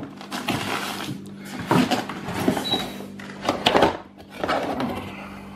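Cardboard packaging and plastic wrap being handled as a cardboard insert is lifted off a boxed unit: rustling and sliding with a few knocks, about two seconds apart. A faint steady hum sits underneath.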